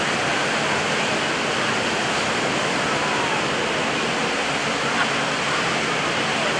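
Steady, even rushing noise of surf and wind at the beachfront.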